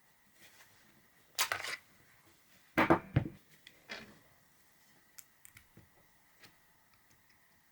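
Paintball magazine and its parts being handled on a tabletop: brief scraping rustles about a second and a half in, a heavier thump around three seconds in and a lighter one at four, then a few small clicks.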